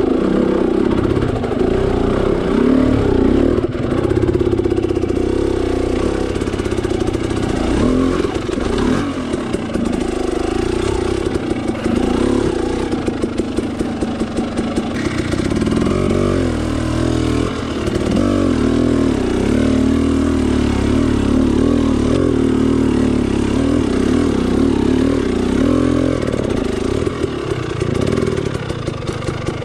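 Dirt bike engine running under load at low speed, its pitch rising and falling as the throttle is worked over rough ground. Through the middle stretch it drops to a slow, lugging chug.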